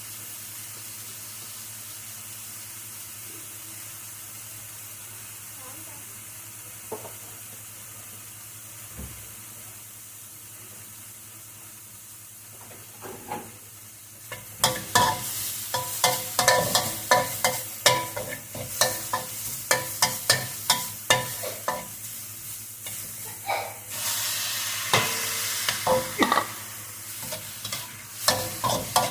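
Food stir-frying in a hot pan. For about the first half there is a steady sizzle; from about halfway a spatula scrapes and clatters against the pan again and again over louder sizzling.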